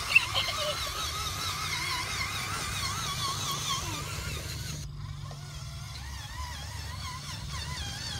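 RC model tractor's small drive motor and gearbox whining as it churns through mud, the pitch wavering up and down, over a steady low hum. The whine drops away sharply about five seconds in.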